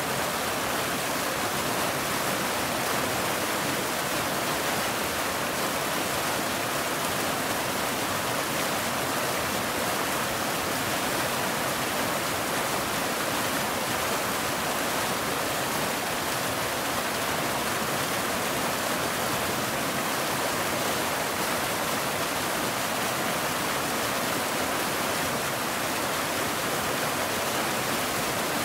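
Waterfall: water rushing down steadily, an even, unbroken hiss with no changes.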